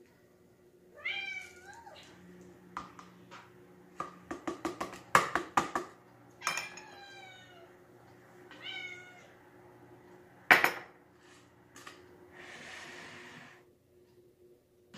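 A cat meowing three times, each a short falling call. Between the meows a metal spoon clinks rapidly against glass and bowls, one sharp knock follows, and a brief rustle comes near the end.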